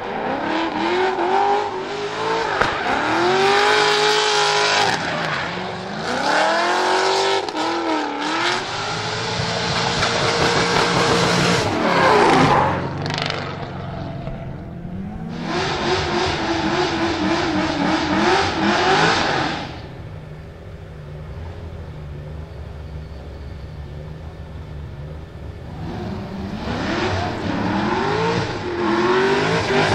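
Mast Motorsport LS7 V8 of a Nissan 200SX S13 drift car revving hard while drifting, its pitch rising and falling again and again, with tyres squealing. It is quieter and steadier for several seconds past the middle, then loud revving returns near the end.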